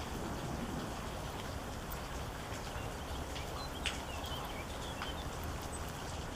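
Steady rain falling, with individual drops ticking sharply on a hard surface close by. A few faint short high chirps come about four seconds in.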